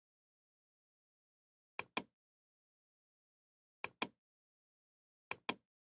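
Computer mouse button clicking: three pairs of short, sharp clicks, each pair a quick click-click, about two seconds apart.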